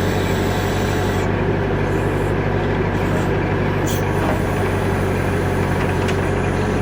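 Tractor engine running steadily at working speed, powering a tractor-mounted backhoe while it digs.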